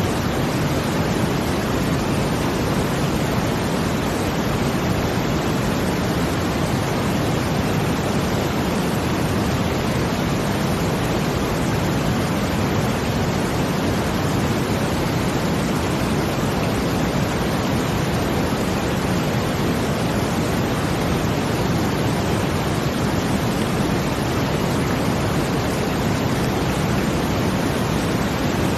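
Steady brown noise blended with a water sound: an even rush, heaviest in the low end, that does not change.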